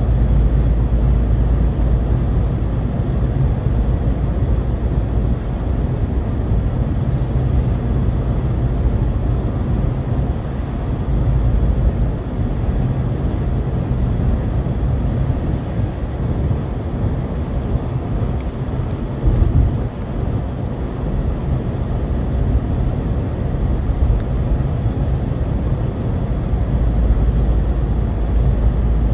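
Steady road noise inside a moving car's cabin at cruising speed: a low rumble of tyres and engine.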